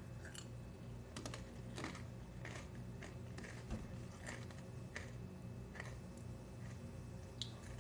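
Cheez-It Grooves cracker chips being chewed: faint, regular crunches about every two-thirds of a second.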